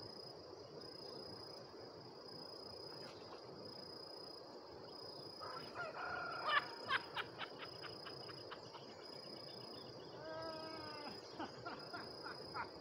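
Chickens clucking in a quick run of calls about six seconds in, and a rooster crowing briefly about ten seconds in, over a steady high-pitched insect drone.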